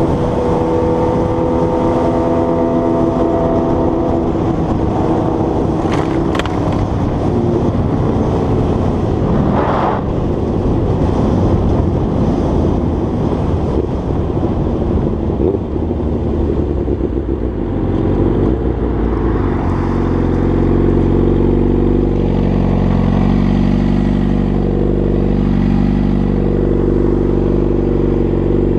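Motorcycle engine running while riding, heard from the camera bike. About two-thirds of the way through the engine note settles lower and steadier.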